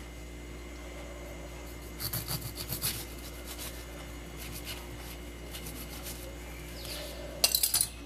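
Kitchen knife sawing through a lime on a paper-towel-covered tile counter: short, rasping back-and-forth scrapes as the blade works through the peel and grates against the tile. A quick run of strokes about two seconds in, lighter scrapes after, and a louder, sharper burst near the end as the cut finishes.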